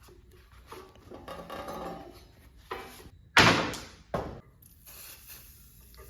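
Workshop handling noises as parts are taken off an old band saw: scraping and rattling, then two sharp knocks a little under a second apart, the first the loudest, each ringing briefly.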